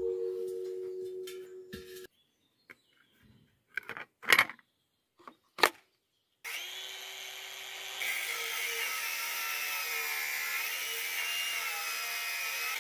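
RedVerg RD-AG18BL/U cordless brushless angle grinder spinning up about halfway through and cutting into a steel gas cylinder: a steady whine that grows louder a couple of seconds later as the disc bites into the metal. Before that, a short metallic ring that fades out, and a couple of sharp clicks.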